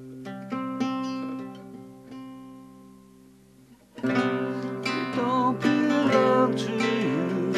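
Instrumental break in a song: acoustic guitar picking notes that ring and fade, then about four seconds in a fuller, much louder band arrangement comes in, with a lead part that bends in pitch.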